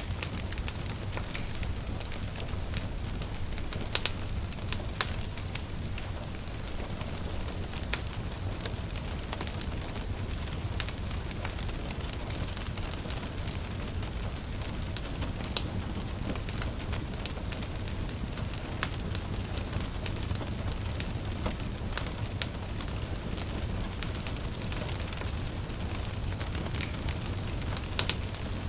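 Wood fire crackling, with scattered sharp pops, over a steady patter of rain.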